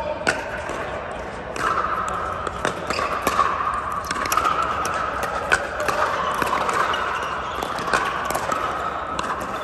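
Pickleball paddles striking a plastic ball: sharp pops at irregular intervals, ringing in a large indoor dome, over a steady background din.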